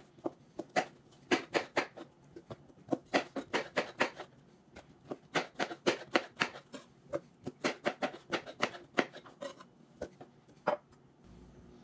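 Kitchen knife chopping a crisp Asian pear on a plastic cutting board: a quick, irregular run of crunchy cuts and blade taps on the board, several a second, stopping about a second before the end.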